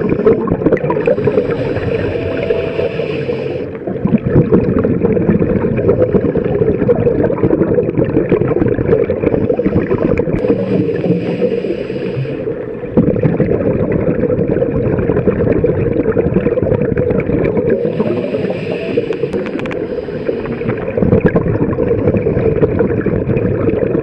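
A scuba diver breathing through a regulator, heard underwater: three hissing inhalations about eight seconds apart, each followed by a long rumbling, bubbling exhalation.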